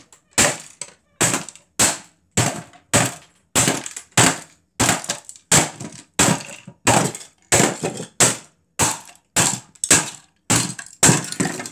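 Claw hammer striking a small plastic speaker cabinet over and over, about two blows a second, each a sharp crack as the plastic casing breaks apart.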